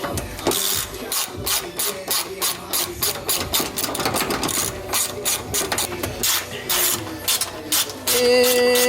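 Ratchet wrench being swung back and forth to work a fastener loose, a run of rapid ratcheting clicks in quick strokes several times a second, with a brief squeal near the end.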